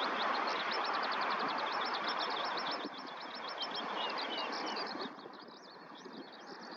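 Rapid, high-pitched bird chirping, about ten short notes a second and sparser later on, over a steady rushing background noise. The noise drops in two steps, about three and five seconds in.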